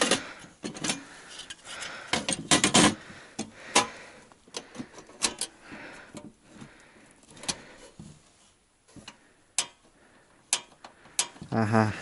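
Irregular sharp clicks and knocks, about a dozen, from a portable butane cassette stove being handled: the gas canister and its locking lever worked by hand.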